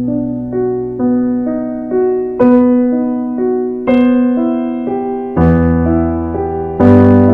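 Background piano music: a line of single notes about two a second, with deeper bass notes joining about five seconds in.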